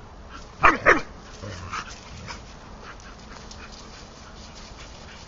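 A dog barks twice in quick succession about a second in, each bark sharp and falling in pitch, as two dogs play; a few much fainter short sounds follow.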